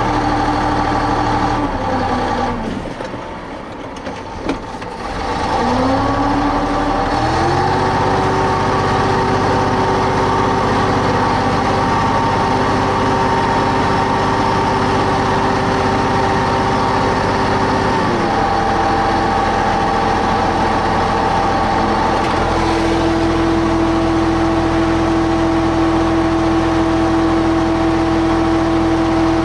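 MAZ truck's diesel engine running: its speed sags and dips in loudness a couple of seconds in, picks up again and holds a steady higher speed for about ten seconds, then drops back to a lower steady running speed.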